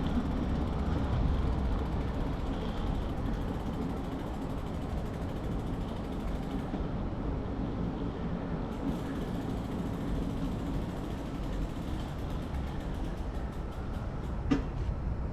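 Mountain bike's freewheel ratchet ticking steadily as the rider coasts, over a steady low rumble of tyre and wind noise; the ticking is clearest in the last few seconds. A single sharp knock sounds shortly before the end.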